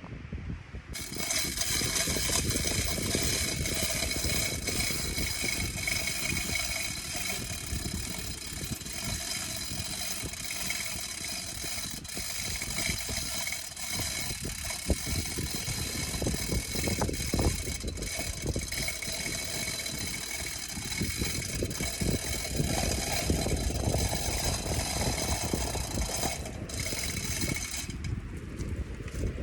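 Stihl MS 170 two-stroke chainsaw running at speed with a steady high whine. It comes up about a second in and drops away near the end.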